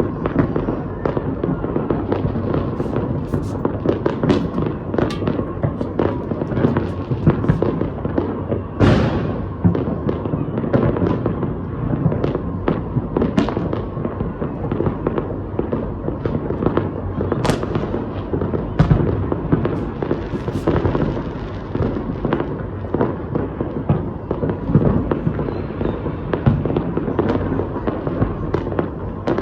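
Fireworks going off in a continuous dense barrage of bangs and crackles, with a short falling whistle about nine seconds in.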